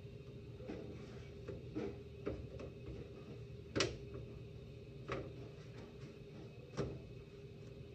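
Scattered light knocks and clacks of tortilla-making work, about half a dozen spread irregularly, the sharpest a little before the middle, over a low steady background hum.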